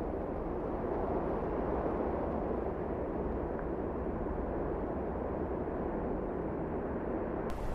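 Steady, muffled rushing noise, with a brighter hiss coming in suddenly near the end.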